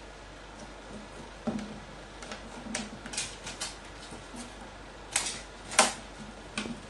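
Carrion crow's beak tapping and knocking on a wooden tabletop as it pecks at kousa dogwood fruits on skewers: a scatter of irregular light clicks, the two loudest about five seconds in and just before six seconds.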